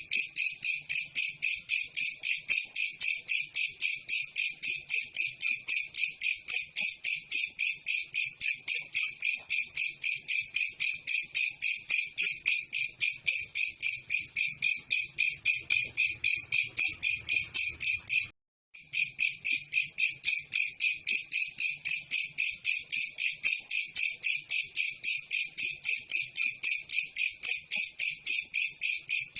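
Belalang kecek insect calling in a fast, even, unbroken run of high chirps, several a second. The recording cuts out for about half a second roughly two-thirds of the way through, then resumes.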